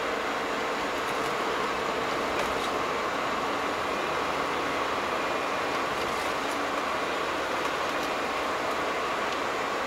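Steady driving noise heard inside a car's cabin: tyre and road noise with the engine running underneath, unchanging throughout.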